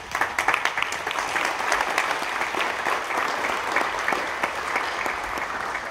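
Audience applauding: many hands clapping, starting suddenly and easing off slightly near the end.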